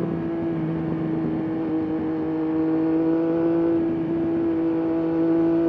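Triumph Daytona 765 Moto2's three-cylinder engine and exhaust running at steady cruising revs, its note holding an even pitch.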